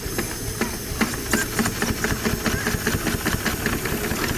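Miniature live-steam traction engine running with a steady hiss of steam. Its exhaust beats quicken about a second in, to about six a second.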